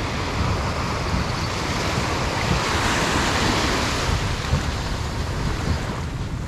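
Small waves breaking and washing up the sand at the water's edge, one swash swelling up about halfway through. Wind rumbles on the microphone underneath.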